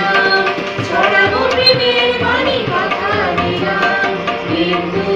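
Women singing a Bengali song together to live tabla and harmonium accompaniment, the tabla keeping a steady beat under the melody.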